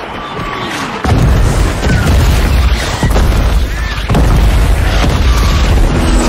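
Heavy explosions in a film's sound mix: a blast about a second in sets off a deep rumble that carries on, and a second blast hits about four seconds in.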